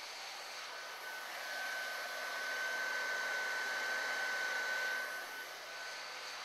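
CV1981 heat gun with a reflector nozzle blowing hot air: a steady rushing hiss with a high, steady whine that grows louder about a second and a half in and fades near the end, while it shrinks a molded heat-shrink boot onto a cable.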